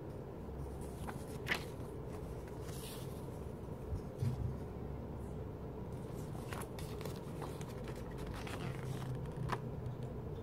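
Paper inserts and a CD lyric booklet being handled: a few soft rustles and light taps of paper over a steady low background hum.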